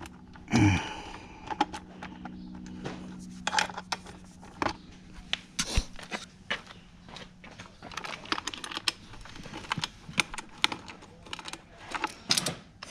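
Irregular light metallic clicks and taps of a hand wrench and loose hardware being worked on a dirt bike's bolts, with a louder clatter about half a second in. A faint steady hum sits behind the clicks for a few seconds after the start.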